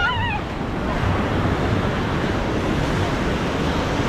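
Ocean surf breaking on the beach, a steady wash of noise with wind buffeting the microphone. A short high call that bends up and down sounds right at the start.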